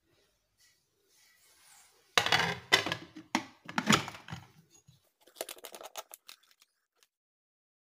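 Aluminium pressure cooker lid set onto the pot with several loud metal clanks and scrapes, then a quick run of lighter clicks as the lid is closed.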